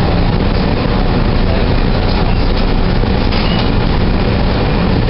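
Steady rumble and hiss inside a Calgary C-Train light-rail car standing still. The level stays even, with no rolling or wheel noise building.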